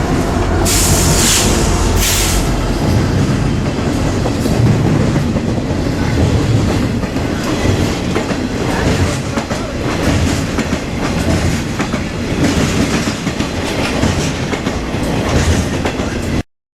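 Train passing close by, its wheels clattering over the rail joints. There are two short hisses about a second and two seconds in, and the sound cuts off suddenly near the end.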